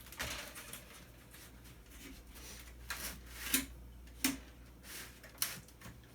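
Scattered light clicks and rustling of small parts being handled while an electronic device is taken apart, with a few sharper ticks about three and a half, four and five and a half seconds in.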